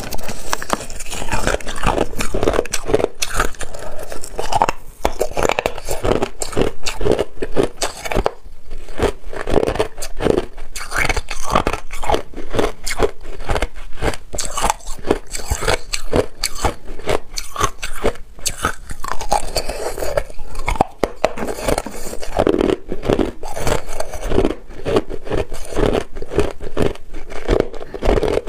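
Hard crushed ice being bitten and chewed close to the mouth: a dense, continuous run of sharp crunches and cracks as chunks break between the teeth.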